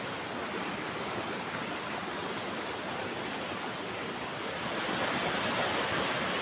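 A fast rocky river rushing through white-water rapids: a steady, even noise of flowing water, a little louder near the end.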